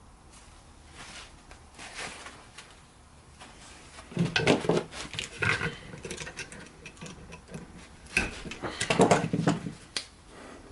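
Metal clicking, knocking and scraping as a jammed folding knife is forced, its liner lock bar bent too far over so the blade won't close. The noises come in two bunches, one about four seconds in and a louder one about eight seconds in.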